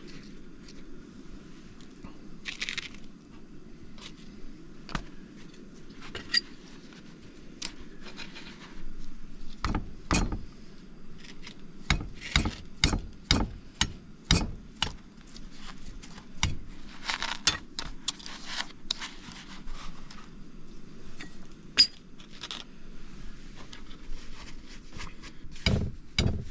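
Kitchen handling sounds on a wooden camp table: scattered clicks, clinks, knocks and scrapes of bowls, utensils and dishes as donuts are rolled in sugar and dough is worked, with a quick run of louder knocks about ten to fifteen seconds in. A steady low hum sits underneath.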